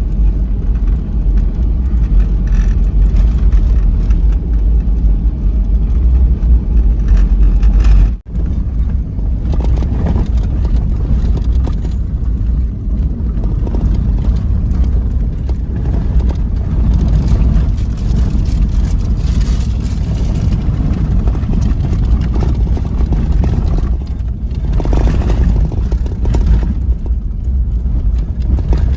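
Vehicle driving along, with a steady heavy low rumble of engine and road noise. The sound cuts out briefly about eight seconds in.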